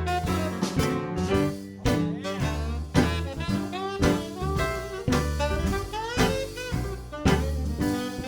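Background music: an instrumental stretch of a swing-style jazz song, with a band playing over a steady bass line and no singing.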